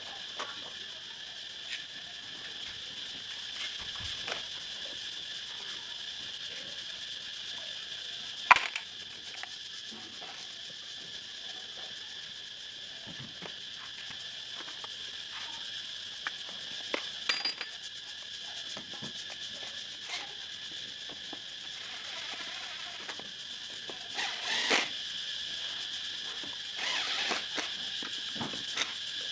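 Scattered metallic clicks and clinks of hand tools and small motorbike engine parts being handled, with one sharp knock about 8 s in and small clusters of clicks later on, over a steady high-pitched drone.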